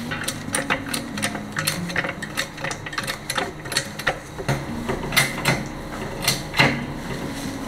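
Hydraulic floor jack being pumped to raise a car: a run of metallic clicks and clanks, a few a second.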